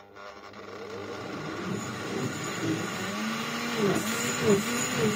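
Olivo countertop blender's motor starting up during its juice program and running, building over the first couple of seconds, its hum dipping in pitch again and again, more than once a second, as the blades churn the contents.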